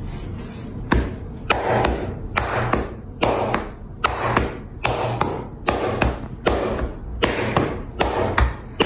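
Percussive massage: hands striking a person's body in a quick series of sharp slaps, about two a second, each with a brief rustle. The strikes begin about a second in.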